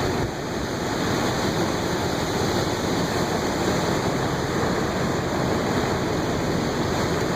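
Floodwater rushing through an overflowing roadside ditch: a steady, loud rush of water.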